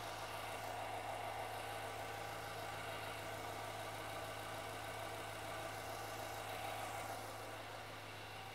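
V8 engine of a Nissan Patrol idling, a steady low hum that eases slightly near the end.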